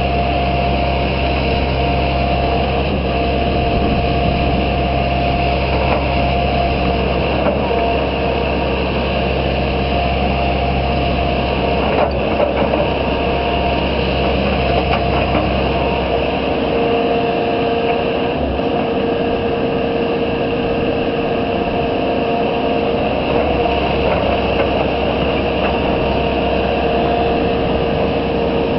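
Hitachi Zaxis 160LC excavator's diesel engine running steadily as it works the hydraulic boom and bucket, with a steady whine over the engine note. About sixteen seconds in the deep low rumble drops away and the whine grows stronger; there is a brief knock about twelve seconds in.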